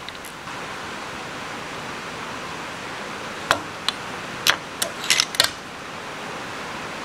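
Several sharp metallic clinks, a cluster of about six in the middle, as the chain grinder's small metal clamp parts and a wrench are handled and set down on a steel welding table, over a steady hiss.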